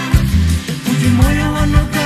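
Music from a Malawian pop song, with a deep bass line under a steady drum beat and pitched instruments.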